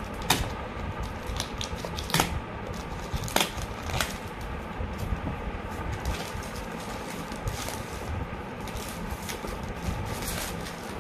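Clear plastic shrink wrap crinkling and crackling as it is torn and peeled off a phone's retail box, with a few sharp snaps in the first four seconds over a steady low rumble.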